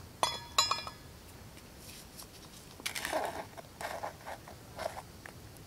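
Two quick metal clinks with a ringing tone, of a stainless steel pot lid, then a few short rustles about three to five seconds in.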